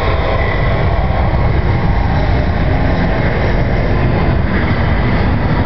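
Airbus A380 on its takeoff roll, its four jet engines at takeoff power making a loud, steady rumbling noise that is heaviest in the low end.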